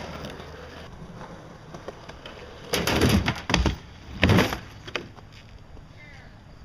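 Skateboard on a wooden kicker ramp and concrete: wheels rolling, with a loud clatter of board knocks on the ramp about three seconds in and a second sharp knock about a second later.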